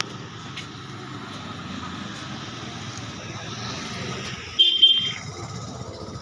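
Street ambience of traffic and passers-by, with a short, high-pitched vehicle horn beep, the loudest sound, about four and a half seconds in.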